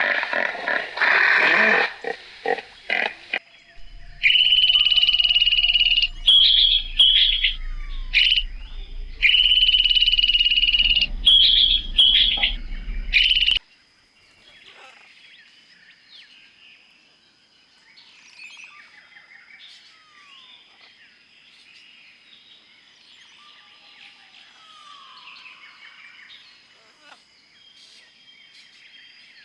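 Loud animal calls for about the first 13 seconds, held shrill cries broken by short pauses. Then the calls stop suddenly and only faint bird chirps and whistles of natural ambience remain.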